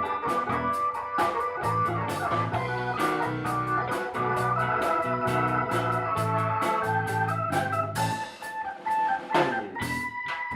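Instrumental break in a blues song: an organ, Hammond-like, plays over a drum kit.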